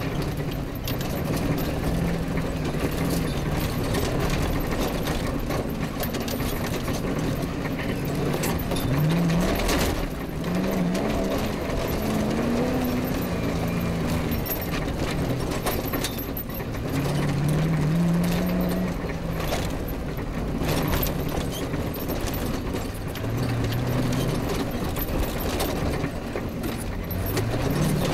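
Off-road rally car's engine working hard, the revs climbing and dropping back several times as it changes gear. Under it runs a constant rattle of the vehicle on rough track, with frequent sharp knocks from bumps.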